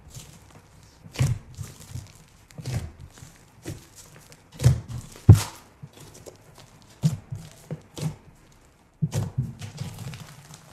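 Hands kneading and poking a pink slime mixed with small foam beads: irregular crackling pops and squishes in clusters, loudest about halfway through.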